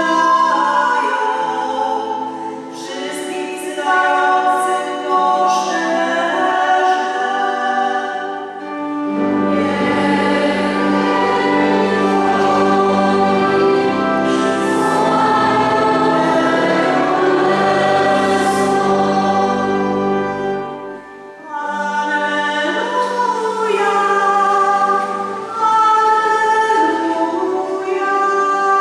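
Two women singing a church hymn at a lectern microphone, their voices carrying the melody. From about nine seconds in, a fuller, deeper sound of more voices joins, then drops away a little after twenty seconds.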